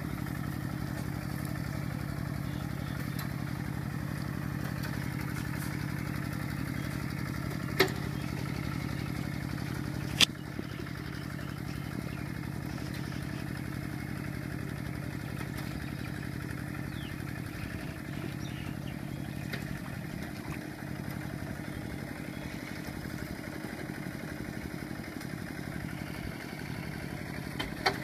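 Single-cylinder diesel engine of a Kubota RT120 two-wheel walking tractor running steadily with a rapid, even firing beat as it works through mud. Two sharp clicks come about a third of the way in, and the engine runs a little quieter after the second.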